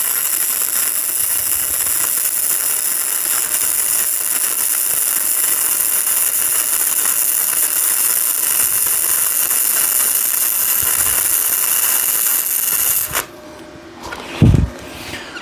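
Flux-core wire-feed welding arc from a Yeswelder DP200 on its automatic settings, a steady hiss that cuts off abruptly about 13 seconds in as the bead is finished. A single thump follows about a second later.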